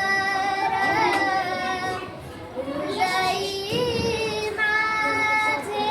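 A child singing a Marathi abhang, a devotional song, in long held notes that bend between pitches. A new phrase starts about three seconds in.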